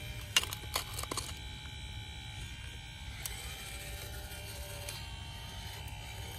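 Hydraulic pump of an RC Double E EC160 excavator with a Norstates hydraulic conversion running under load with a steady high whine over a low hum as the boom, bucket and swing are worked. A few sharp clicks in the first second or so, and one more about three seconds in.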